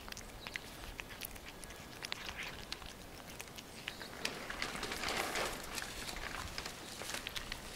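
A cat chewing and licking boiled carp off a plastic plate: irregular small wet clicks and smacks, with a brief louder rustle about five seconds in.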